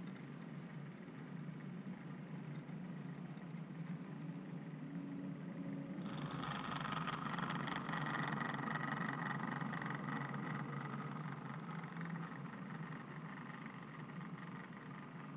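OO-gauge model train running along the track, heard from a camera riding on it: a steady low rumble. About six seconds in it grows louder, with a higher whine and a fine rattle, then eases off near the end.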